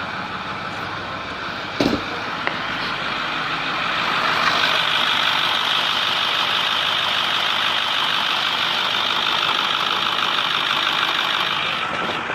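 2010 Ford F350's 6.4L Power Stroke V8 turbo-diesel running with no exhaust leak, its manifold gaskets freshly replaced. There is a sharp click about two seconds in. The engine gets louder and hissier from about four seconds in, then drops back near the end.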